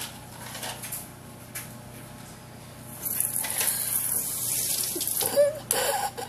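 Kitchen sink spray nozzle spraying water: a loud, even hiss that comes on suddenly about three seconds in.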